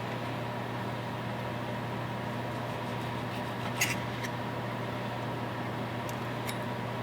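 A steady low mechanical hum, with two brief light clicks, one about four seconds in and one near the end.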